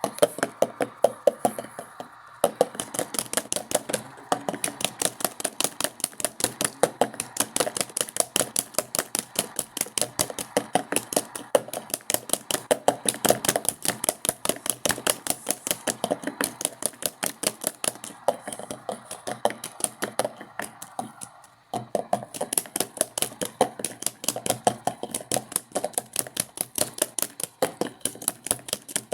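Washing machine in its spin cycle, with a rapid, even clacking beat of many strokes a second, briefly dropping out twice.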